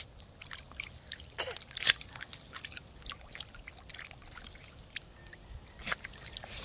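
Water trickling and splashing in a shallow plastic dish as a puppy bites and laps at the jet of a small floating fountain pump, with short splashes throughout, the sharpest about two seconds in and another near the end.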